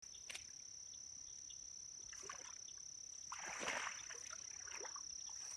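Shallow pond water sloshing and splashing around a wading angler's legs, loudest about three and a half seconds in, over a steady high-pitched insect trill.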